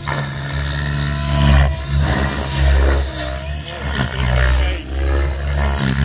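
Radio-controlled helicopter flying aerobatic manoeuvres, its rotor and drivetrain sound rising and falling in pitch as it flips and tumbles.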